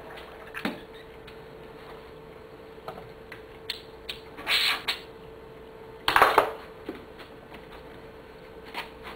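Clicks, taps and clatter of hoses, fittings and tools being handled on a cluttered workbench. A short noisy rustle comes about four and a half seconds in and a louder one about six seconds in, over a faint steady hum.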